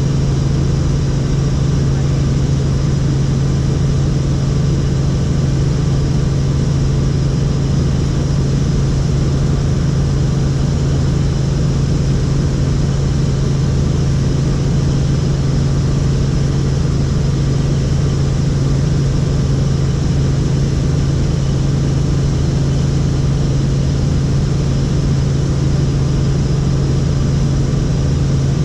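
Helicopter running, most likely in flight: a loud, steady drone of rotor and engine with a strong low hum that does not change.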